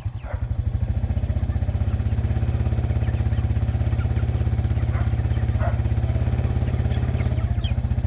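Quad (ATV) engine running steadily with a fast, even firing pulse, getting a little louder about a second in.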